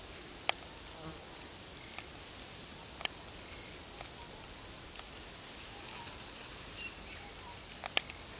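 Steady buzzing and hissing of insects in vegetation, broken by a few sharp clicks, the loudest about three seconds in and near the end.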